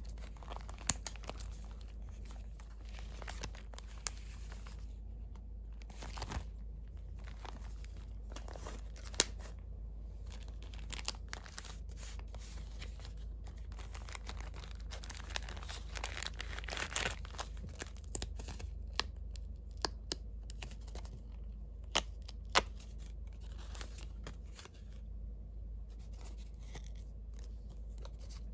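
Paper and clear plastic pieces of a handmade junk journal being handled: cellophane and plastic sleeves crinkling and paper rustling, with scattered sharp clicks and taps, the loudest a little after nine seconds and twice around twenty-two seconds. A low steady hum underneath.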